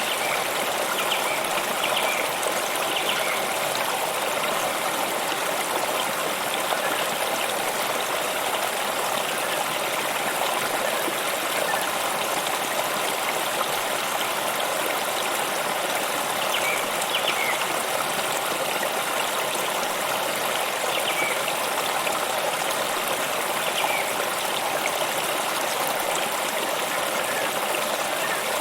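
A stream of water flowing steadily and evenly, with a few faint short chirps now and then.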